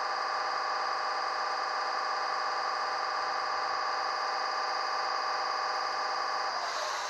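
Air-compressor sound of an ÖBB 1043 locomotive played by the ZIMO sound decoder through the small speaker of a Roco H0 model, switched on at random by the decoder. It is a steady hum of several tones with a fast pulse, and it cuts off shortly before the end.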